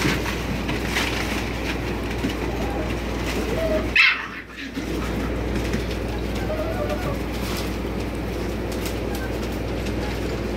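American Bully puppies giving soft whimpering calls now and then, with newspaper rustling under their paws. There is a louder sudden noise about four seconds in.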